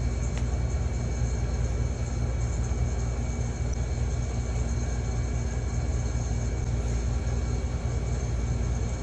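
Steady low rumble and hum of commercial bakery machinery running, with a few constant tones above it and no change in level.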